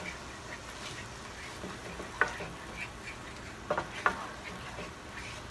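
Wooden spoon stirring minced garlic in hot butter and lemon juice in a square nonstick skillet, with a soft steady sizzle. There are a few sharp taps of the spoon against the pan about two seconds in and twice near four seconds.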